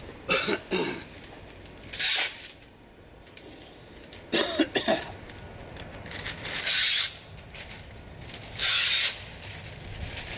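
A man coughing twice, about half a second in and again around four and a half seconds in. Three short hissing bursts fall between and after the coughs, the longest near the middle.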